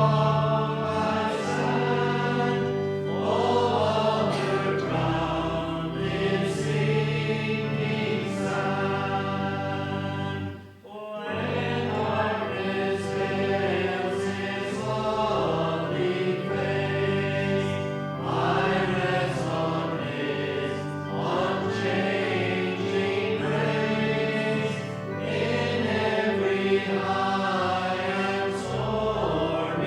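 A hymn sung by many voices over instrumental accompaniment, with steady held bass notes. The singing breaks off briefly about eleven seconds in, then goes on.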